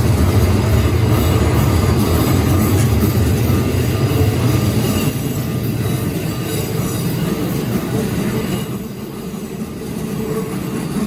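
Keikyu Line train running past a level crossing close by, its wheels rumbling on the rails. The rumble eases off about eight or nine seconds in as the train moves away.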